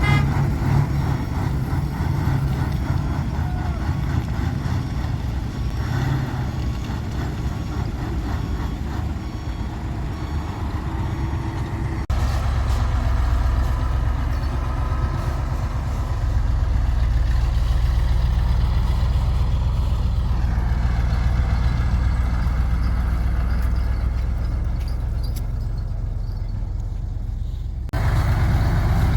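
Heavy diesel engine noise from an excavator working while it loads a dump truck. The noise runs steadily, changing abruptly twice and getting louder in the second half.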